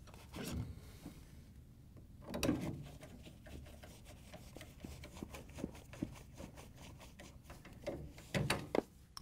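A hand nut driver turning hex-head screws into the plastic water filter housing bracket: rubbing and scraping of the tool and the gloved hands, a long run of fine quick ticks as the screw turns, and a few sharper knocks near the end.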